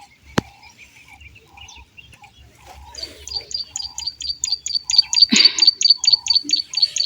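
A bird calling: faint chirps at first, then from about three seconds in a fast, even run of high, sharp notes, about five a second. A sharp click comes near the start and a knock about midway.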